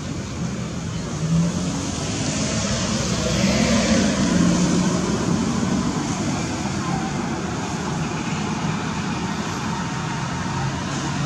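Road traffic going by on a street. Engines and tyres make a steady noise, with one vehicle passing louder a few seconds in.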